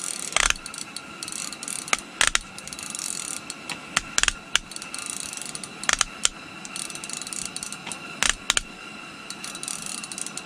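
Fishing reel ratcheting and clicking while a hooked trout is played through the ice, with an irregular run of fine ticks and a louder sharp click every second or two.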